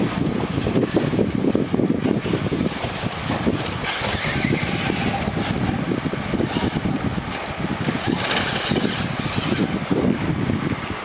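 Remote-control truck driving, a steady rough rumble from its motor and wheels, mixed with wind buffeting the microphone; the higher hiss grows from about four seconds in.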